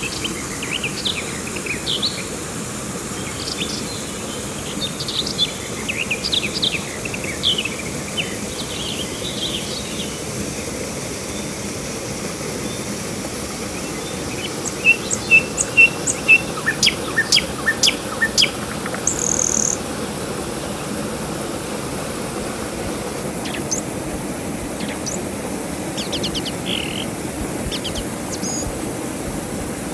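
Wild birds calling and chirping over a steady background hiss. Sharp, louder chirps come in a burst about halfway through, with scattered calls before and after.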